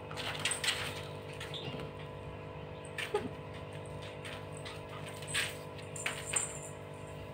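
Puppies scrambling at play: paws and claws scuffing and skittering on a plastic floor mat in short scattered bursts, over the steady hum of an electric pedestal fan.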